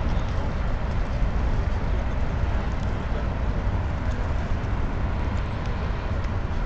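Steady outdoor background noise: a low rumble with an even hiss over it, with no single clear event.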